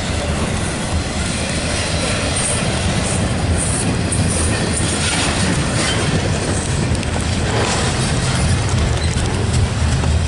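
Double-stack intermodal freight train rolling past: a steady rumble of steel wheels on rail, with occasional clanks and clatter from the well cars.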